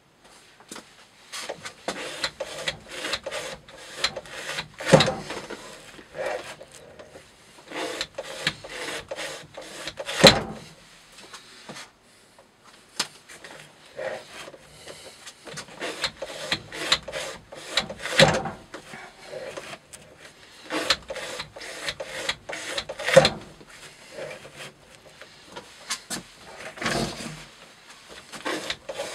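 Rope-cutting test rig in use: rope dragged through a metal guide and sliced by a Spyderco Para Military 2 knife on a weighted lever arm, giving a run of irregular rubbing and scraping strokes with a sharper knock every several seconds.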